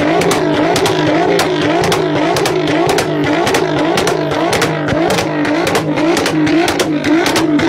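Nissan GT-R R35's twin-turbo V6 revved over and over while standing still, its pitch rising and falling about twice a second, with sharp cracks throughout.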